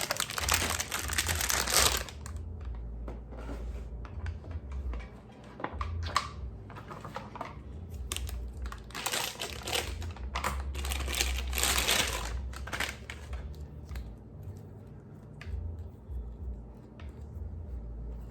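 Plastic packaging crinkling and rustling as it is handled and unwrapped. The crinkling comes in loud spells: one in the first two seconds, another from about eight to thirteen seconds in, with lighter crackles between.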